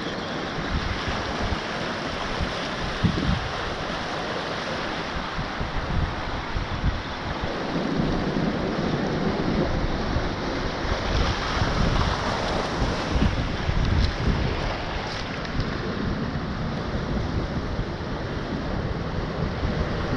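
Surf washing over a kelp-covered rocky reef, a steady rushing noise, with wind buffeting the microphone.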